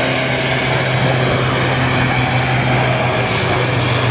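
Bombardier Dash 8 turboprop climbing out after takeoff: a steady, loud propeller drone with a low hum over engine rush.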